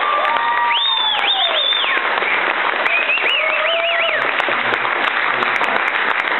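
Audience applauding and cheering, with high-pitched whoops about one second in and again around three to four seconds in.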